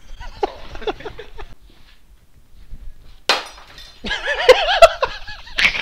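A single sharp crash about three seconds in, then a loud, high, wavering cry a second later, and another sharp knock near the end.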